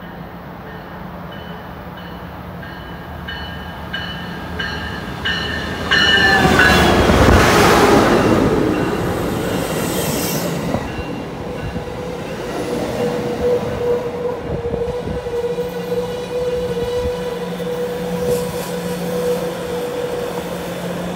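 Amtrak passenger train pulling into the station: a rapidly repeating high ringing as it approaches, the locomotive going past loudly about six seconds in, then bi-level cars rolling by with a steady squeal from the wheels or brakes in the second half.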